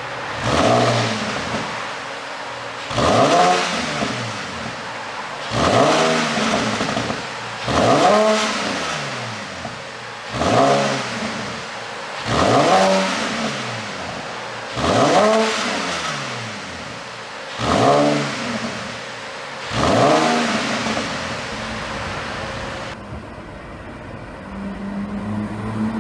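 Porsche Panamera 4 engine revved in nine short blips about every two and a half seconds, each rising and falling. Popping and crackling comes on each overrun, the effect of an ECU pop-and-crackle tune. Near the end the blips stop and the engine settles to a steady idle.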